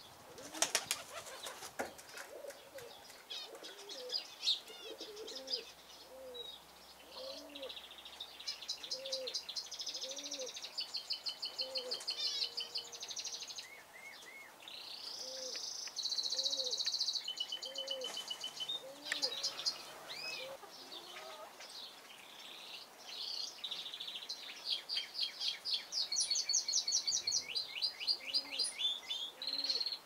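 Zebra finches chirping and singing in rapid, repeated nasal calls and buzzy phrases, over a dove cooing low, about once a second. A short flurry of wingbeats sounds about a second in.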